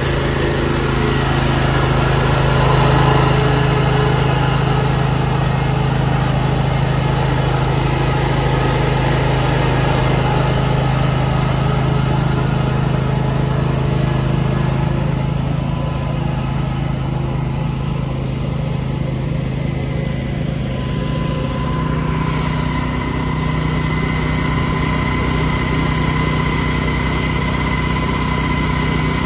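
Petrol engine of a Graden sand-injection scarifier running steadily as its blades slice grooves into a golf green and sand is fed in behind them. About two-thirds of the way through the engine's note changes and settles into a steadier, even hum as the machine stops cutting.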